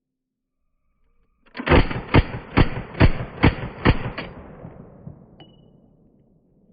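Group Industries Uzi 9mm submachine gun firing seven shots at an even pace of about two a second, then a fading echo.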